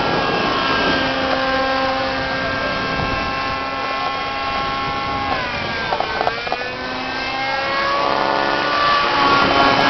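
Thunder Tiger Raptor RC helicopter in flight: its .35-size nitro glow engine and rotor whine steadily. The pitch dips about five and a half seconds in, then climbs back over the next couple of seconds as the helicopter manoeuvres.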